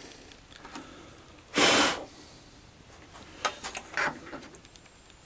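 A man's short, forceful exhale, like a snort or sigh, about a second and a half in, loud and about half a second long; a little low muttering follows near the end.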